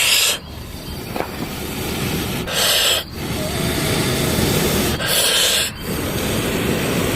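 Wood cooking fire being blown on by mouth: short hissing puffs come every two to three seconds over a steady rustling fire noise.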